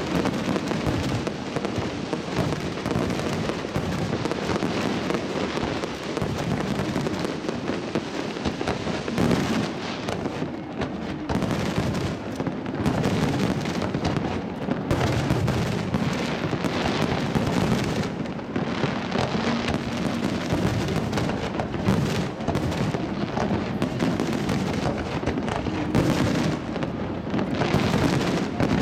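Fireworks display: a dense, continuous barrage of shell bursts and crackling, the bangs overlapping without a break.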